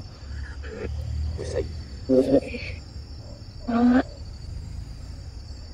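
Spirit box scanning through radio stations, throwing out four short, chopped voice-like fragments over a steady chirring of crickets. A low rumble is heard in the first couple of seconds.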